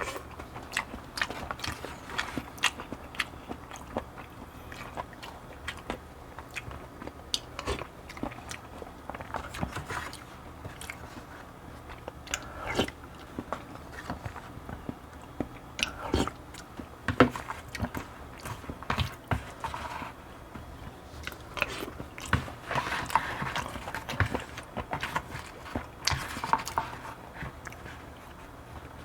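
Close-miked chewing of barley bibimbap and cheonggukjang: a steady run of irregular mouth clicks and smacks.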